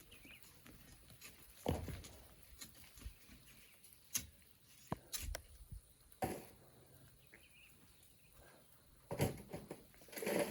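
Scattered knocks and scrapes of hand tools working sand and stones: about half a dozen sharp, separate strikes spread through a few seconds, over a low background.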